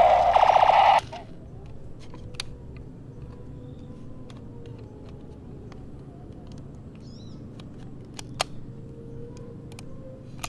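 Toy automatic pistol's electronic firing sound effect, a loud rapid pulsing rattle from its speaker, cutting off suddenly about a second in. Then quiet plastic handling clicks as a clear drum magazine is fitted to it, with one sharp click a little after the middle.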